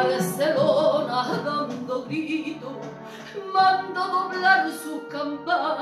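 A woman singing a Spanish copla in full voice, with long held and gliding notes, over instrumental accompaniment with guitar.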